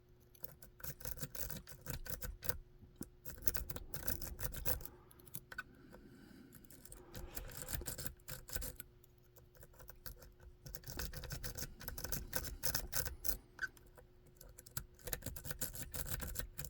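Lock pick being raked through the pin stacks of a cheap Chinese Bi-Lock knockoff: fast runs of small metallic clicks and scratching, starting and stopping in uneven bursts with short pauses between them.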